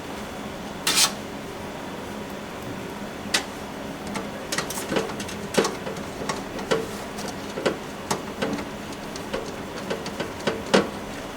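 Screwdriver turning the motherboard's mounting screws into the case standoffs: a short scrape about a second in, then irregular small metal clicks and scrapes, the loudest near the end.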